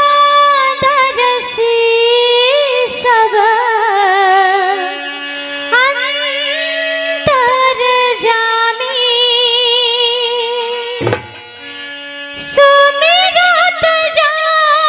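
Devotional Ramayan-recital music without words: an ornamented melody with vibrato over steady held notes, with scattered dholak strokes. The music thins out briefly about eleven seconds in, then comes back louder.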